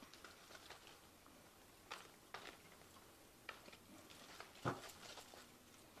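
Near silence: room tone with a few faint, scattered clicks and taps, the loudest about two-thirds of the way through.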